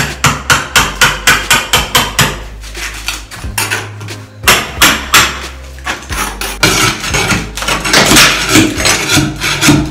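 Hammer blows on a pry tool wedged behind ceramic wall tile, cracking and chipping the tile off the wall. It starts with a fast run of about four to five blows a second, then there is a short pause and a few more blows, and near the end a denser stretch of cracking and clattering tile.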